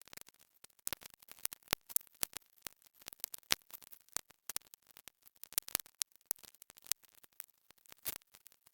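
Dense, irregular crackling clicks, several a second and uneven in loudness, with no birdsong.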